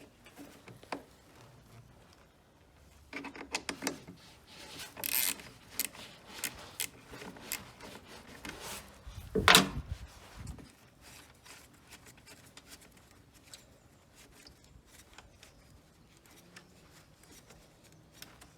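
Scattered clicks, rubbing and scraping of a hand tool and plastic trim as an 8mm screw is undone and taken out, with one louder thump about nine and a half seconds in.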